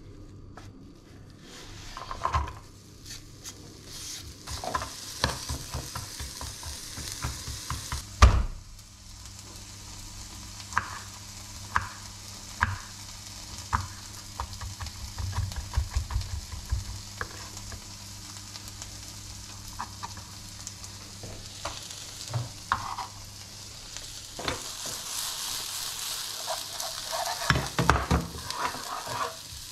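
Knife chopping on a wooden cutting board: a run of sharp taps, with one louder knock about eight seconds in. Near the end, diced onion sizzles in oil in a frying pan while a spatula scrapes and stirs it.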